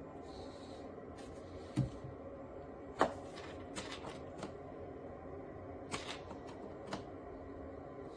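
A few scattered clicks and knocks over a steady background hum, with a low thud a little under two seconds in and the sharpest click about a second later.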